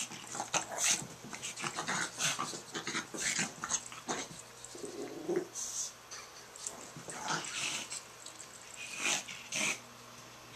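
Small dog playing with a ferret: a rapid, irregular run of short scuffling and snuffling sounds, with a brief growl about five seconds in.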